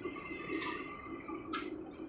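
Steady hum inside a moving suburban train carriage, with two brief high squeaks or clicks, about half a second and a second and a half in.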